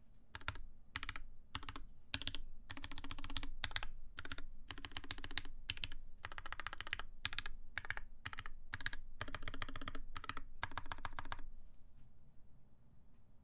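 Typing on a TGR Alice mechanical keyboard with lubed Cherry MX Black linear switches, a copper plate and Hammerworks CRP keycaps: quick keystrokes in short runs with brief gaps between them, stopping near the end.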